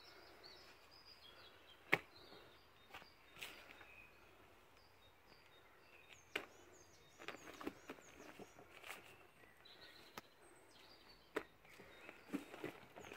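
Faint sticky pops and squelches from a large batch of fluffy slime being stretched and kneaded by hand, with a dozen or so sharp pops scattered through and the loudest about two seconds in. Birds chirp faintly in the background.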